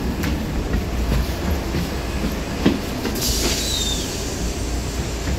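MAN SG262 articulated city bus standing with its engine running as a steady low rumble. A knock comes about two and a half seconds in, and just after it a loud hiss of compressed air as the pneumatic doors open.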